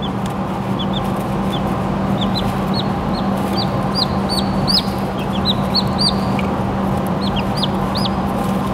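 Newly hatched chicks peeping: many short, high chirps that come thicker and higher-pitched around the middle, over a steady low hum.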